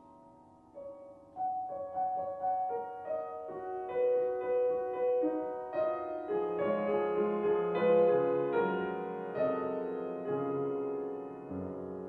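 Grand piano played solo: single notes enter about a second in and ring on, then build into denser, louder figures that peak about two-thirds of the way through before thinning out.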